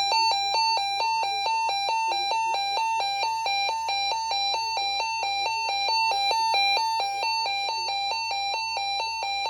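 Eton ESP2100 weather radio's alert alarm sounding, set off by a NOAA Weather Radio required weekly test: two high, buzzy beeping tones alternating rapidly and evenly, loud and unbroken.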